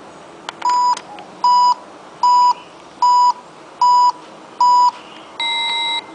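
A button click, then a mini Tefal Electronic Kitchen oven's beeper sounding six short, even beeps about three-quarters of a second apart, followed by one longer beep at a slightly lower pitch near the end.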